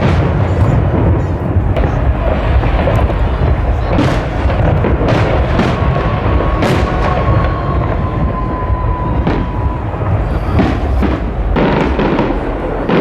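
New Year fireworks going off in many overlapping bangs and crackles over a continuous low rumble. About six seconds in, a thin whistle sets in, holds for about four seconds and falls slightly at the end.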